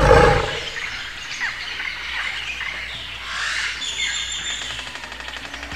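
Birds chirping and squawking in a jungle ambience, many short varied calls overlapping.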